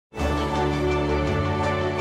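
Intro theme music that starts abruptly, with sustained chords over a bass line that shifts notes.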